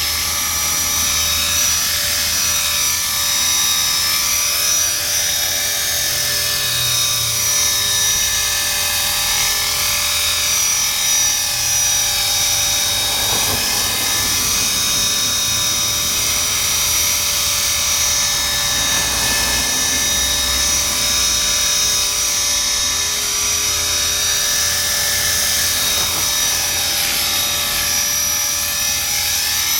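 Blade 400 electric RC helicopter hovering: a steady high whine from its motor and gears, with the buzz of the spinning rotors. The pitch drifts gently up and down as it holds and shifts position.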